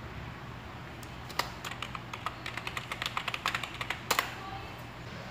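Typing on a computer keyboard: a quick, uneven run of key clicks starting about a second in, ending with a louder pair of clicks about four seconds in, over a steady low hum.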